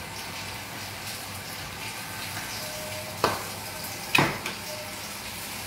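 Floured salmon fillets frying in a pan: a steady sizzle. Two sharp knocks come about three and four seconds in.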